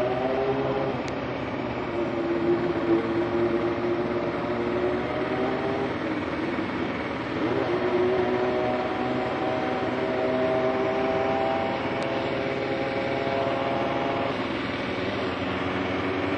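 2009 Kawasaki KLR650's single-cylinder engine running under way, rising in pitch at the start and again about seven seconds in as the bike accelerates, then holding steady, over a steady rushing noise.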